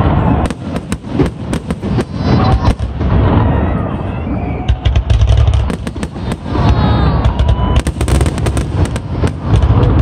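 Fireworks barrage at close range: many rapid bangs and crackling pops from aerial shells and fountains, over a low rumble, with a few whistling tones in places.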